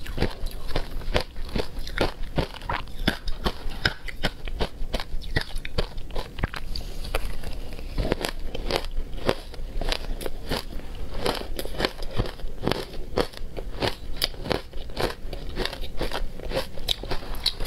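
Close-up chewing of shaved ice dusted with matcha and milk powder: a steady stream of sharp, crackling crunches in quick, irregular succession.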